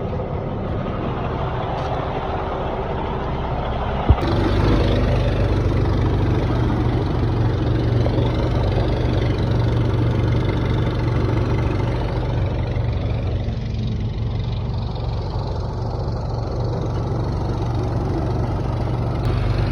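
Heavy truck's diesel engine idling steadily, with one sharp click about four seconds in.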